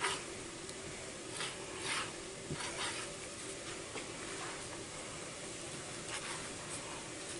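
Knife slicing through raw beef on a plastic cutting board: a few short scraping strokes over a steady background hiss.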